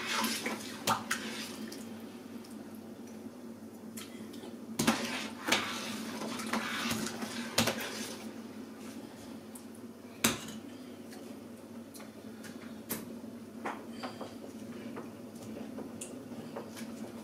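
A spoon clinking and knocking against stainless steel cooking pots while stew is stirred and seasoned: irregular sharp clinks, the loudest about five and ten seconds in, over a steady low hum.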